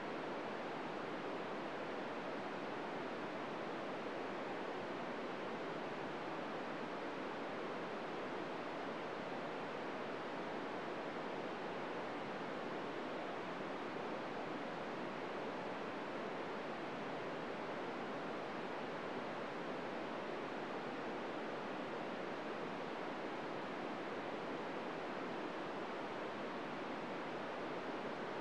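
Steady hiss of an FM radio receiver with its squelch open on the ISS downlink frequency, 145.800 MHz, with no SSTV tones coming through: only noise is being received.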